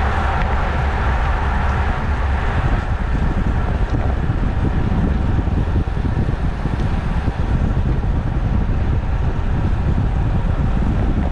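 Steady wind rush buffeting the microphone of a camera on a road bike ridden at about 25 mph, with rolling noise from the tyres on asphalt beneath it.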